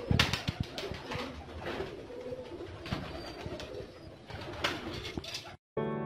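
Indian ringneck parakeets in a wire-mesh aviary: soft calls mixed with scattered sharp clicks and scrapes, which cut off abruptly near the end.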